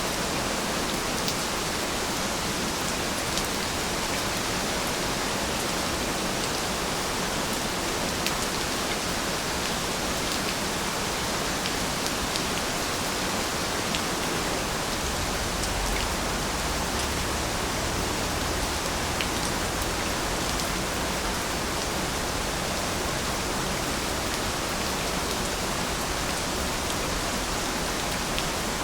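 Steady rain: an even hiss of falling rain with faint individual drop ticks scattered through it, and a low rumble coming in for a while about halfway through.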